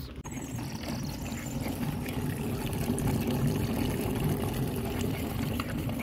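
Soapy wash water pouring out of the drain of a hand-cranked portable washing machine as its basket is turned by the crank to spin the water out of the clothes, a steady running of water.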